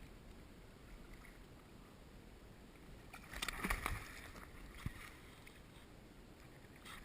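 Hooked fish splashing and thrashing at the water's surface for about a second, starting some three seconds in, followed by a single sharp click.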